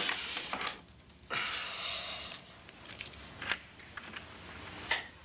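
Rustling of bedclothes and clothing, with scattered soft clicks and taps.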